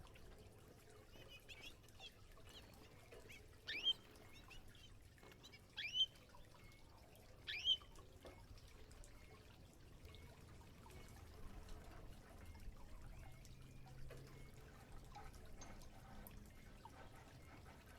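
Canary giving three short call notes, each a quick downward-sweeping chirp, about two seconds apart, over faint trickling water.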